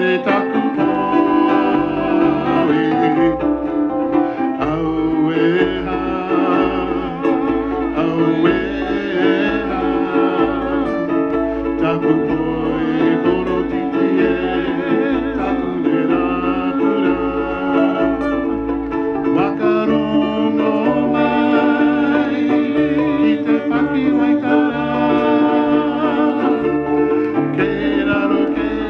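Live Maori poi song: group singing with strummed ukulele and guitar over a steady bass beat, the bass pattern changing about two-thirds of the way through.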